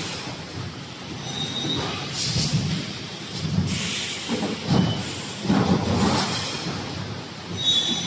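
EPS 3D panel production machine running: irregular bursts of mechanical clatter about once a second, with hissing spells and a few brief high squeals.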